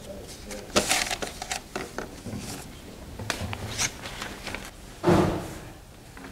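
Paper brochures rustling in short, scattered crackles as they are pulled from a rack and leafed through, with one louder dull thump about five seconds in.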